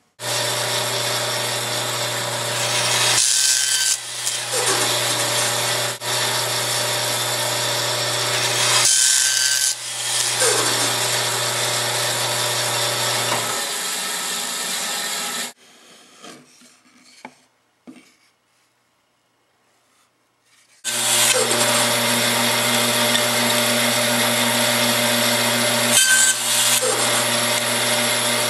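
Band saw running and crosscutting wood, each cut a brief louder stretch over the steady motor hum. About halfway through the saw is switched off and runs down to quiet. A few seconds later it is started again and makes another cut.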